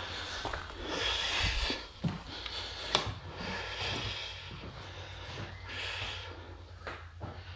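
A person breathing heavily close to the microphone, a breath about every two seconds, with a couple of sharp clicks, one about three seconds in.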